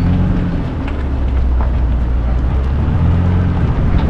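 Truck driving while towing a loaded trailer: a steady low engine drone that rises and falls slightly in pitch, under constant road noise.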